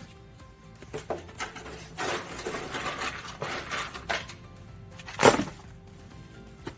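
Background music with a few irregular knocks and scrapes of hard objects, the loudest a little after five seconds in.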